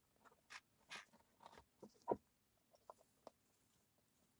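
Faint, scattered clicks and taps from gloved hands fitting an RC crawler wheel onto its axle hub and putting a small cross wrench to the wheel nut, with the sharpest tap about two seconds in.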